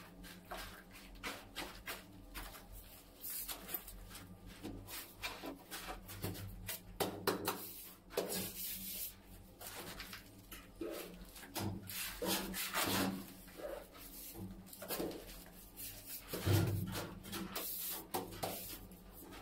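Ceramic wall tiles being slid and pressed into combed tile adhesive: irregular scraping and rubbing with scattered light knocks, and a dull thump about sixteen seconds in.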